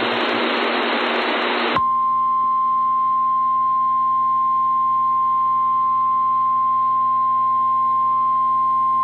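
Emergency Alert System broadcast heard over AM radio. It opens with a harsh noisy data burst from the digital SAME header for a little under two seconds, then cuts to the National Weather Service's single steady 1050 Hz warning alarm tone, which signals that a flash flood warning follows.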